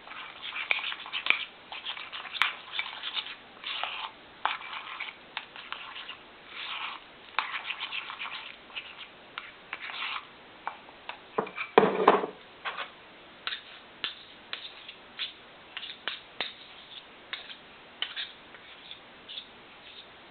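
A utensil stirring and scraping sweet rice flour dough in a bowl, in short irregular strokes. The dough has been partly cooked by a first 15 seconds in the microwave. There is one louder knock about twelve seconds in.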